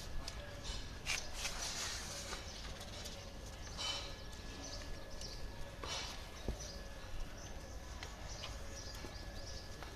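A cow moving about on tiled pavement: scattered hoof knocks and brief rustling noises over a faint steady hum.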